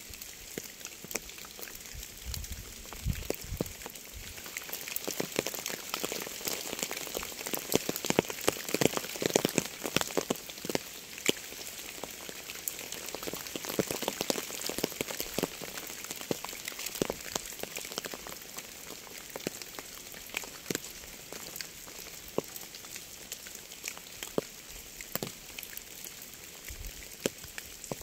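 Steady rain with many individual drops pattering sharply on a surface. It falls heavier for a spell in the middle.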